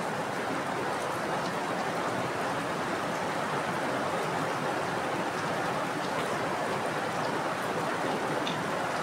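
Heavy rain falling steadily, an even hiss with a few single drops ticking through it now and then.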